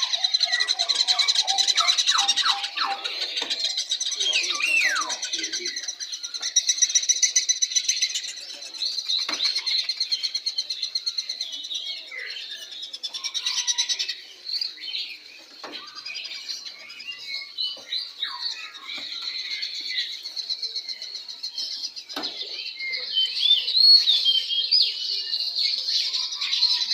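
Many caged birds chirping and trilling at once: a dense, unbroken chorus of high calls and rapid pulsed trills, with a few lower notes near the start.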